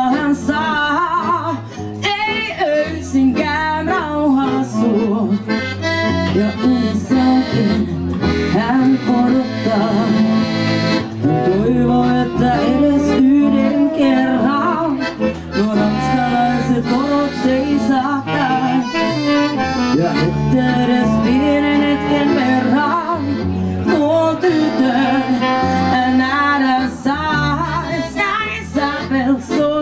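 Live tango song: a woman singing with tenor saxophone and double bass, drums behind, with long held, wavering melody notes about a third of the way through.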